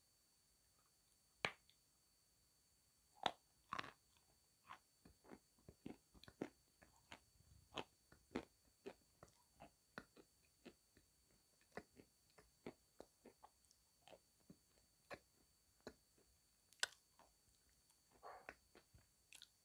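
Close-miked biting and chewing of lumps of Sevryukovo chalk: a run of crisp, irregular crunches and clicks, a few every second, with louder bites about a second and a half in, about three seconds in, and near the end.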